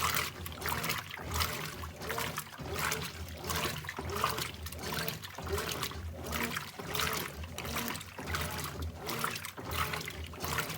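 Brastemp BWK17 17 kg washing machine agitating a load of jeans in water on its Heavy and Jeans cycle: water sloshing and churning in rhythmic surges about once a second.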